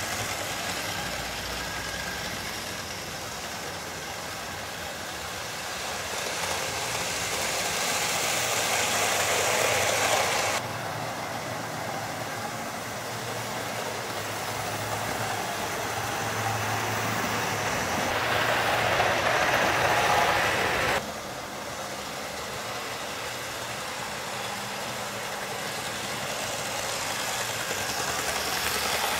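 OO-gauge model trains running on the track: a steady whirr and rumble of motor and wheels that swells as a train draws near. The sound drops off abruptly twice, about ten and twenty-one seconds in.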